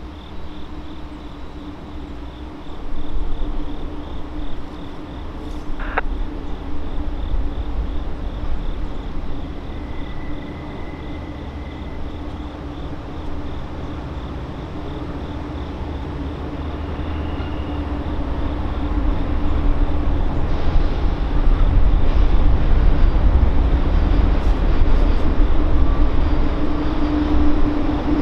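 Norfolk Southern intermodal freight train's diesel locomotives approaching, a low steady rumble that grows louder through the last ten seconds or so.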